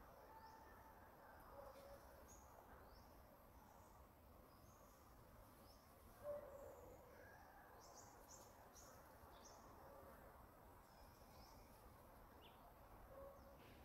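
Faint outdoor ambience: scattered short high chirps and a few brief lower calls of wild animals, with one slightly louder short sound about six seconds in.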